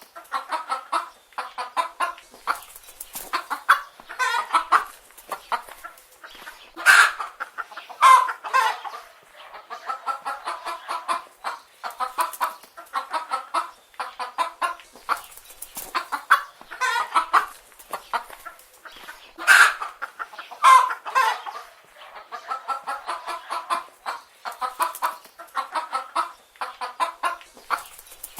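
Chicken hens clucking, a steady stream of short calls from several birds, with a few louder calls scattered through.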